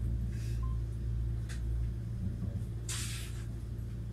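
Interior running noise of a Kintetsu 80000 series Hinotori electric express train: a steady low hum and rumble, broken by short hisses, the loudest about three seconds in.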